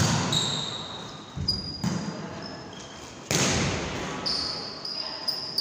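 Volleyball rally in a large gym hall: the ball is struck about four times, each hit echoing off the walls, with short high squeaks from sneakers on the wooden court.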